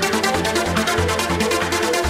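Trance music from a DJ mix: a steady electronic dance beat with fast, even hi-hat ticks over a pulsing bassline that shifts in pitch.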